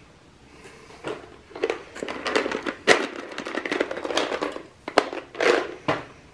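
Stiff insulated electrical wires being handled and worked by hand: a run of rustles and crackles with sharp clicks. The sharpest clicks come about three and five seconds in.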